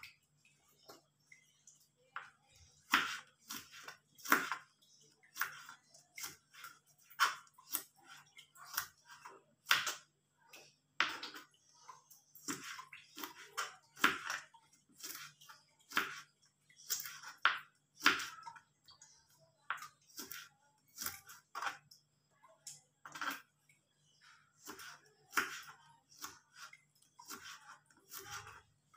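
Kitchen knife cutting green beans on a plastic cutting board: a run of short, crisp chops and knocks against the board, one or two a second at an uneven pace.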